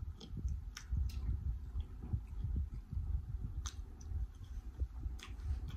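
A person chewing roast chicken with the mouth open, making irregular soft wet chewing sounds and a few sharp smacking clicks.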